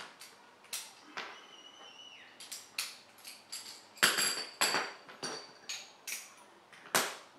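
Hand tools, a ratchet and hex socket, clicking and clinking irregularly on the motorcycle's fairing fasteners. A short ringing tone comes about a second and a half in, and ringing metal clinks about four seconds in. The loudest knocks fall about four seconds in and again near the end.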